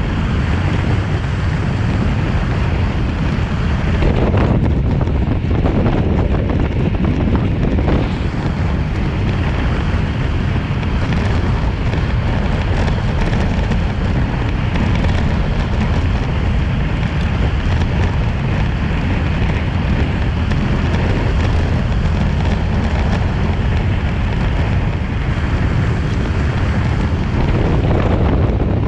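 Steady wind noise on the microphone of a bike-mounted camera on a road bike racing at about 30 mph.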